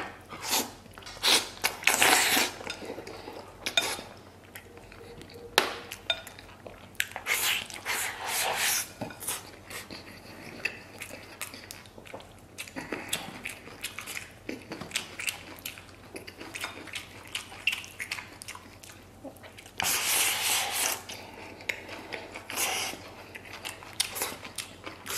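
Close-miked eating of gelatinous braised pig trotter with rice: wet chewing, lip smacking and sucking, in several louder bursts, with chopsticks clicking against a ceramic bowl.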